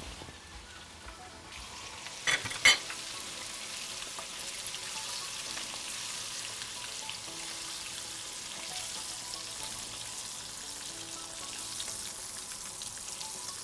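Minced-meat balls sizzling in oil in a frying pan on a gas burner, a steady hiss, as the nearly cooked meat is lifted out onto a plate. Two sharp clicks come about two and a half seconds in.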